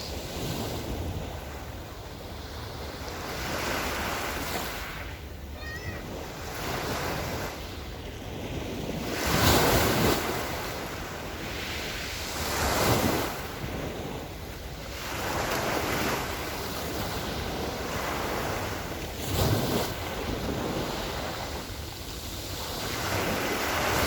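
Small Black Sea waves washing onto the shore in repeated surges, with louder breaks about ten, thirteen and nineteen seconds in.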